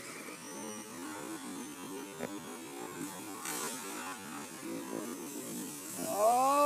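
Electric RC monster truck's motor and drivetrain whirring as it drives over dirt, with a loud whine about six seconds in that rises and then falls in pitch as the car speeds up and backs off.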